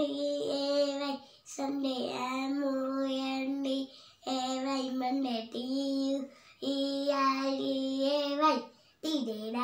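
A young girl chanting in a sing-song voice, reciting the days of the week with their spellings, in long held phrases of about two seconds each with short breaks for breath.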